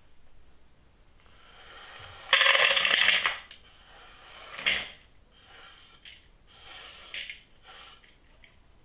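Chopped dark chocolate scraped off a wooden cutting board into a clear bowl: a loud rush of pieces sliding and dropping in, lasting about a second and starting about two seconds in. Several shorter scrapes and rattles follow as the last bits are pushed in with the fingers.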